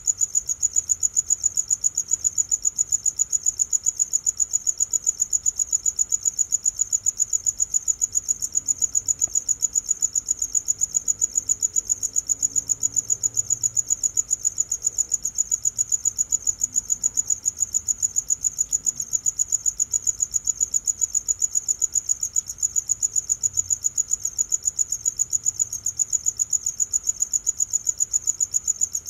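Crickets chirping: a steady, high-pitched pulsing song repeating about four times a second without a break.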